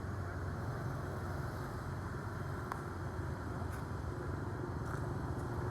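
A steady low engine hum, like a motor idling, with a few faint clicks.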